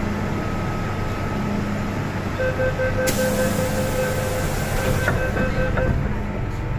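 MTR M-train door-closing warning: rapid two-tone beeping for about three and a half seconds, with a burst of hiss about halfway through, over the steady hum of the train and station.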